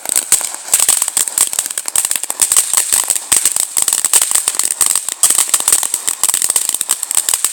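A firework crackling continuously, a dense stream of small sharp pops and snaps.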